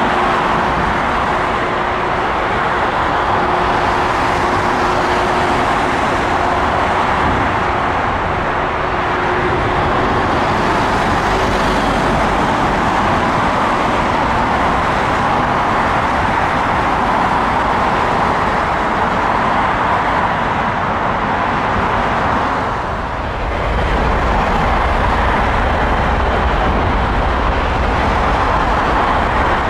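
Steady rushing jet engine noise from an airliner at the airport. A deeper rumble joins about three-quarters of the way through.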